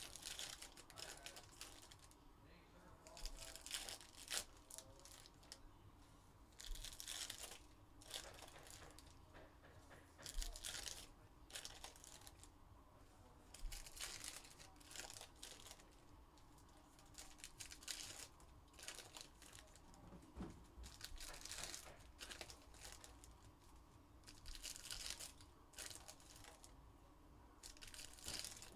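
2021 Panini Phoenix football card packs' foil wrappers being torn open and crinkled by hand, one pack after another: short ripping and crinkling bursts every few seconds.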